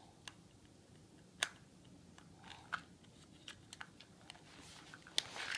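Scattered small clicks and taps of a screwdriver and plastic parts being handled at a toy train's battery compartment, with a few sharper clicks, the loudest near the end.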